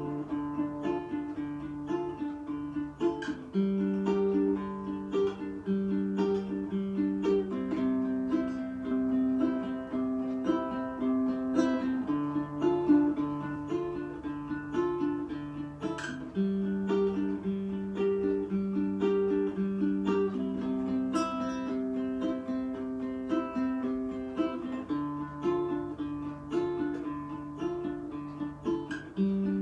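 Background music: a light tune on plucked strings, picked in a steady rhythm over changing chords.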